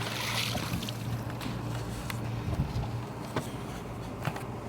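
A boat engine running with a steady low hum that eases off a little past the middle, with a few light clicks or taps scattered through it.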